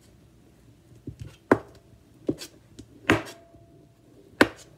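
Kitchen knife chopping avocado flesh on a cutting board: a handful of uneven, sharp knocks of the blade on the board, three of them louder than the rest.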